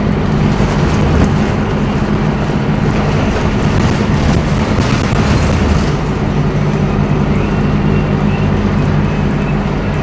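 Cabin of a 2008 Scania K230UB city bus under way: the rear-mounted diesel engine running steadily under road and tyre noise, with a spell of light rattling in the middle.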